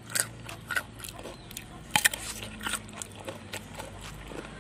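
Crisp crunching bites and chewing of a raw papaya stalk: a string of sharp snaps, the loudest about two seconds in.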